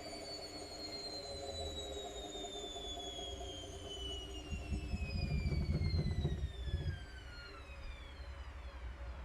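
Whirlpool FL 5065 washing machine's 600 rpm spin with an unbalanced load, winding down: the motor's whine falls steadily in pitch over about eight seconds. A heavy low rumble from the drum swells about five seconds in and dies away about two seconds later.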